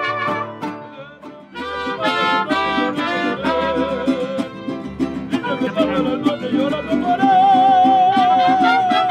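Mariachi band playing live: trumpets at the start, then, after a short break about a second in, strummed guitars under a male singer, who holds one long note with vibrato near the end.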